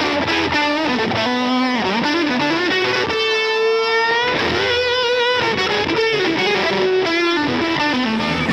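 Live rock band playing an instrumental break led by a distorted electric guitar. The guitar plays a single-note lead line with bent notes and a held, wavering note about three to four seconds in.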